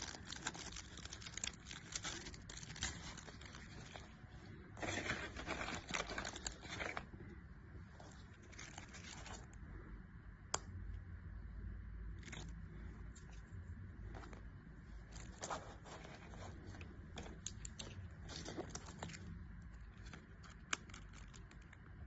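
Packaging crinkling and tearing in irregular bursts, with scattered light clicks, as a nasal strip pack is handled and opened.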